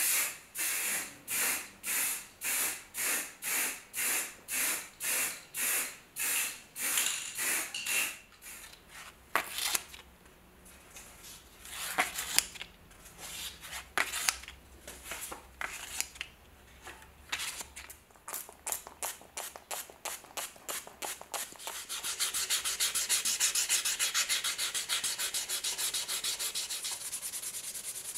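An aerosol spray can fires short, even puffs of hiss, about one and a half a second, for the first several seconds. Then come scattered taps and scuffs as sheets of fine-grit sandpaper are handled. From about two-thirds of the way in, a compass's clear dome is hand-sanded with fine-grit paper in quick, steady back-and-forth rubbing strokes.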